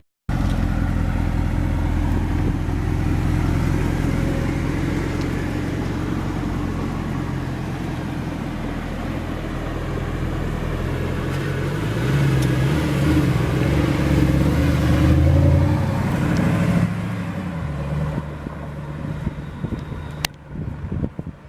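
Mercedes SLS AMG's naturally aspirated 6.3 AMG V8 running, with a deep steady exhaust note that grows louder and shifts in pitch for a few seconds past the middle before settling again.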